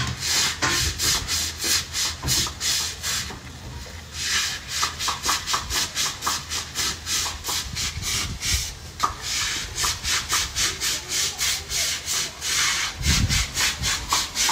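Stiff-bristled deck brush scrubbing wet, soapy concrete in quick back-and-forth strokes, about three a second, with a short pause about four seconds in. A brief low thump near the end.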